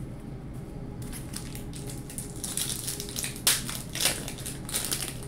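The wrapper of a 1998 Score football card pack crinkling as it is handled and torn open. Sharp crackles come from about two and a half seconds in, the loudest about halfway through.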